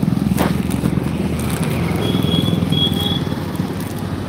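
Road traffic passing close by: a steady low engine drone from motorcycles and cars going past on the highway.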